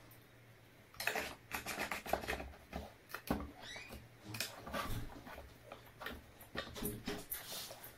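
Plastic lotion pumps being worked by hand on water-filled bottles: an irregular run of clicks and short squirts as the pump heads are pressed, along with plastic rattling as bottles and pumps are handled. The first second is quieter.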